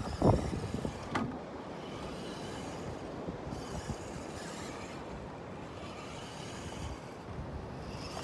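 Radio-controlled truck driving, its small electric motor and tyres running steadily, with a couple of knocks in the first second or so.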